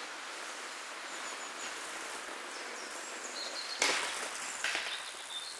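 Steady hiss of a flowing stream, with a sharp click about four seconds in and another just under a second later.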